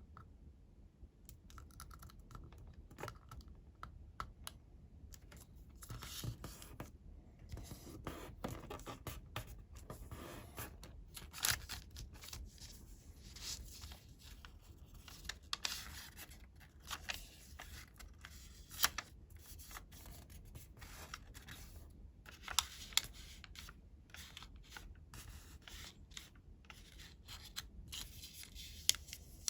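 Square sheet of coloured origami paper being folded and creased by hand: irregular crinkling and rustling, with a few brief crisp clicks as folds are pressed down.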